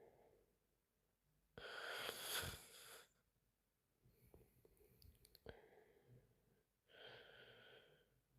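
A sleeping woman breathing heavily, with a breathy hiss. The loudest breath comes about two seconds in and lasts over a second, a few soft clicks follow around the middle, and a fainter breath comes near the end.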